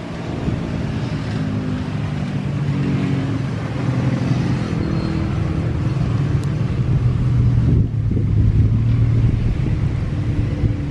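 An engine's low drone, growing louder over the first several seconds and then holding.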